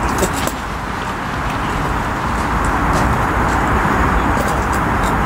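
Steady hum of road traffic, with a few light metal clicks as the folding legs of a SOTO regulator gas stove are unfolded: a couple near the start and a few more near the end.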